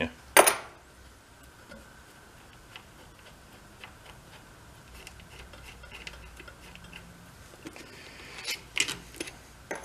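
Small scattered clicks and taps of hands working metal parts of an ATV winch motor on the bench, with a sharp clack about half a second in and a quick run of clicks near the end.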